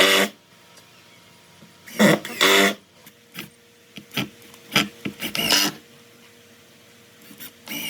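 A hand tool scraping across wood in short, irregular strokes, over a faint steady hum.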